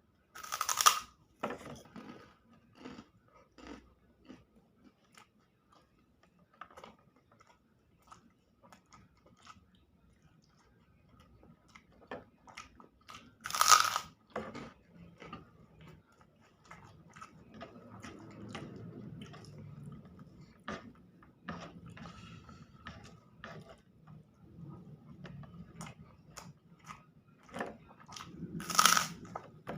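Close-up eating sounds of a person eating eggs in chili sauce: biting and chewing with small wet mouth clicks, the chewing growing steadier and fuller in the second half. Three sharp, louder clinks stand out, spread through the stretch.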